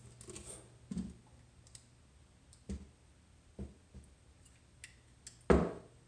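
A few separate soft knocks and clicks from hands handling a suspension fork and its decal on a workbench, the loudest one near the end, over a faint steady hum.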